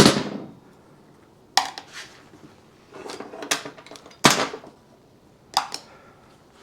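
Loose steel steering-head ball bearings clinking as they are gathered up: about half a dozen sharp metallic clinks at irregular intervals, each with a short ring.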